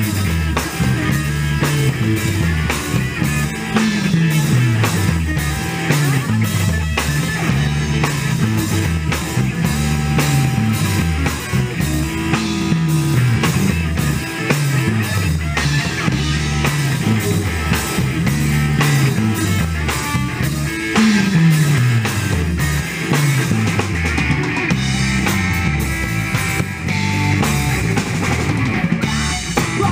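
Live rock band playing an instrumental passage without vocals: drum kit and electric guitar over a low bass line that slides downward again and again.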